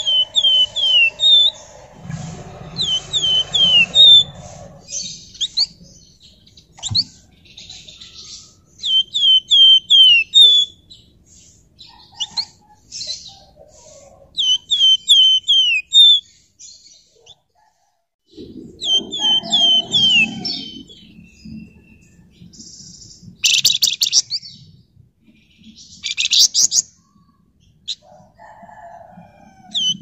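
Caged flamboyan songbird calling: quick runs of four or five falling whistled notes, repeated again and again, with two short harsh, hissy bursts about two-thirds of the way through.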